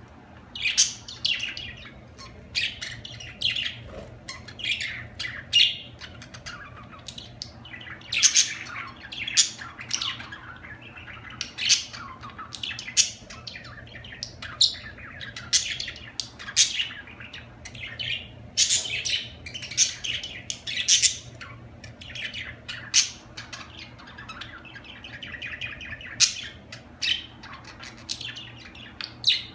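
Budgerigars chirping and warbling: a busy, unbroken stream of short, sharp, high chirps.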